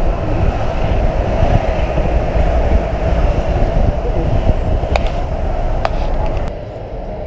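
Loud, steady rumble of road traffic crossing the bridge beside the pedestrian walkway, with a couple of sharp clicks about five seconds in. The rumble drops off a little shortly before the end.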